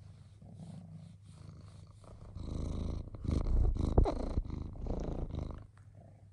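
Domestic cat purring while being stroked. The purr grows loud from about two and a half seconds in as its face comes right up to the microphone, with a short snuffle about four seconds in.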